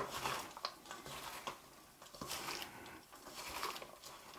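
Gloved hand tossing sliced raw onions with ground spices in a stainless-steel bowl: faint, irregular rustling with small scattered clicks.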